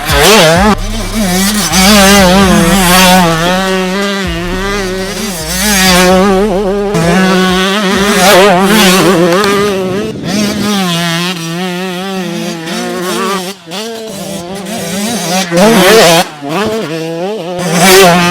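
Husqvarna TC 85 two-stroke motocross bike's single-cylinder engine revving hard as it is ridden. Its pitch climbs and falls again and again, with a few brief drops off the throttle.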